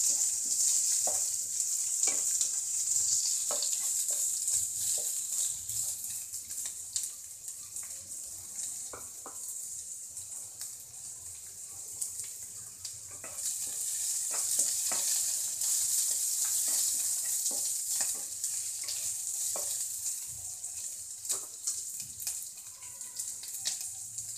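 Shredded cabbage, onion and bell pepper strips sizzling in hot oil in a pan over high heat, with short clicks and scrapes of a spatula against the pan as they are stirred. The sizzle swells twice, over the first few seconds and again from about halfway through, easing off in between.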